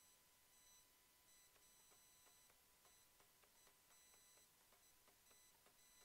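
Near silence, with faint high-pitched tones that cut in and out and faint ticks.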